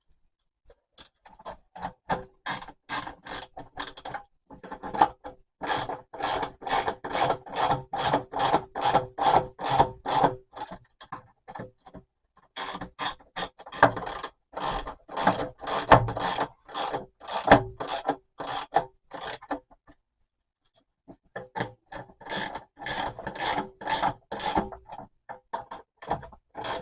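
Bolts on a plastic dust separator being tightened with a hand tool: a rhythmic rasping, about three strokes a second, in three runs with short pauses between them.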